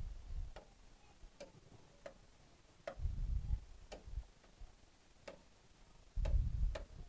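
Light, sharp clicks of a stylus tapping on an interactive touch-screen board, coming irregularly about once a second. Low, dull thuds come three times: at the start, about three seconds in and near the end.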